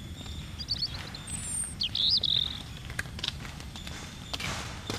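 Birds chirping over outdoor rural ambience: a few short chirps about a second in, then a louder twittering call around two seconds in, over a faint steady high-pitched tone and a low background rumble.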